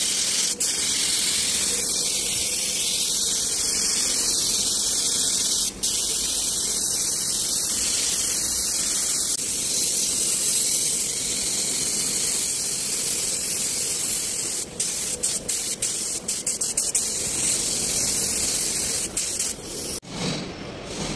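Compressed-air paint spray gun hissing steadily as it sprays paint, with a string of quick stop-starts as the trigger is pulsed about three quarters of the way through, then cutting off sharply about a second before the end.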